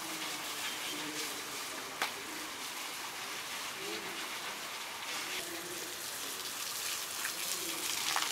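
Water from a garden hose gushing and splashing steadily over an Asian elephant and the wet paving beneath it as the elephant is washed down.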